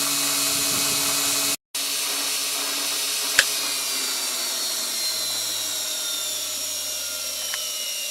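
Brushed washing machine motor whining as it spins on battery power; a sharp click comes about a third of the way through, after which its pitch slowly falls as the motor winds down after being switched off.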